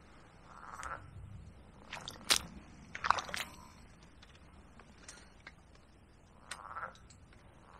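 Frogs croaking now and then in short bursts. Between about two and three and a half seconds in, a few sharp clicks and crunches, the loudest sounds.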